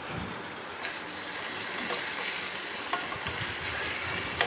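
Chopped onions, green chillies and ginger-garlic paste sizzling in hot oil on a tawa, growing a little louder about a second in, with a spatula stirring and scraping them through with a few light taps.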